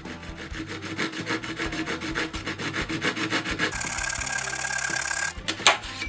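Flush-cut hand saw cutting through a wooden dowel to trim it level with a pine board, in quick even rasping strokes. The strokes run together into a continuous hiss for a second or so, and a sharp click near the end marks the loudest moment.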